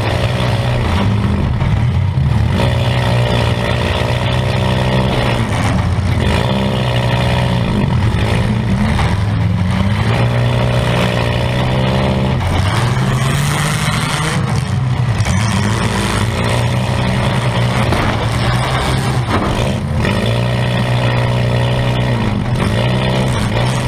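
Compact demolition-derby car's engine running loud inside the stripped cabin, revving up and down again and again.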